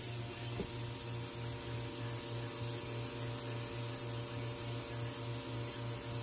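Steady machine hum with a low throb pulsing about three times a second.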